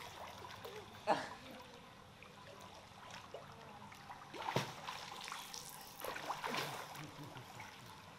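Pool water splashing and lapping as a child swims, with a few louder splashes about a second in and again around the middle.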